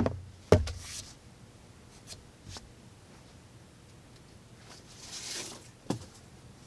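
Handling noises from a folding knife and its cutting material: a sharp click about half a second in, a few faint ticks, a soft rustle around five seconds in, and another click just before six seconds.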